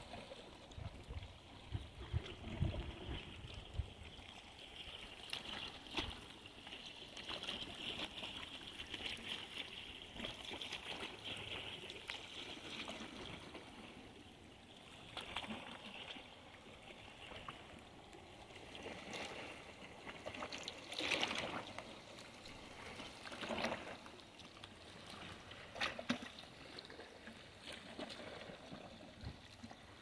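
Small sea waves lapping against a concrete pier wall, with a sharper splash now and then.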